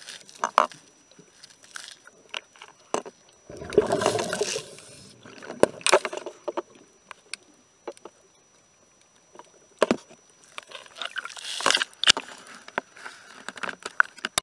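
Underwater sound of a boat hull being worked on by a diver: scattered sharp clicks and scraping knocks against the hull, with a short rushing burst about four seconds in and another noisy patch a little past eleven seconds.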